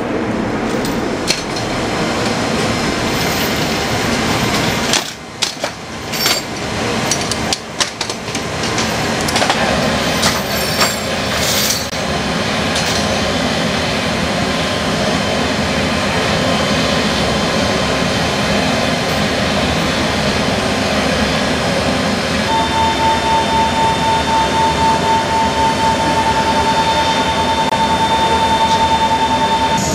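Loud, steady machinery noise inside a C-17's cargo hold, with metal clanks of tank tie-down chains being handled in the first part. Past the middle a steady pulsing whine comes in on top.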